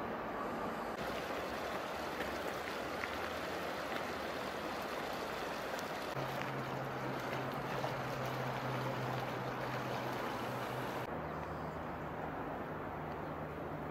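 Steady rushing of river water, with a low steady hum joining about six seconds in.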